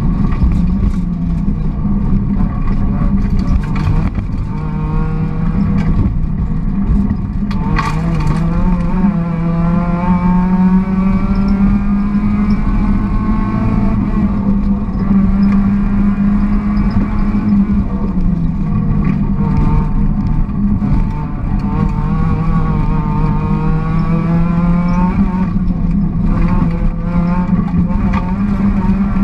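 Volkswagen Golf GTI rally car engine heard from inside the cabin, driven hard. Its pitch climbs and drops back again and again as it accelerates and shifts gear, over steady road noise. There are a few sharp knocks early on and at about eight seconds.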